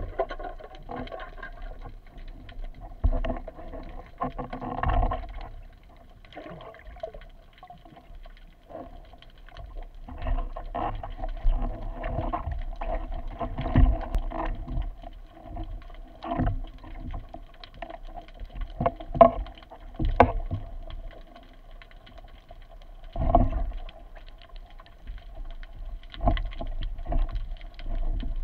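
Underwater sound through an action camera's waterproof housing: irregular knocks, clicks and scrapes as a speargun shaft and its line are handled and the speared fish is hauled in, over a steady faint hum.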